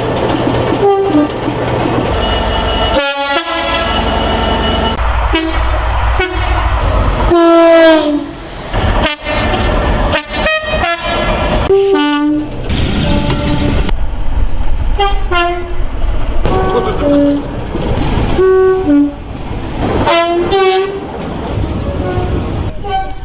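Train horns sounding one after another, many as short two-tone blasts that step between a higher and a lower note, over the rumble and wheel clatter of passing trains. The sound cuts abruptly from one train to the next several times.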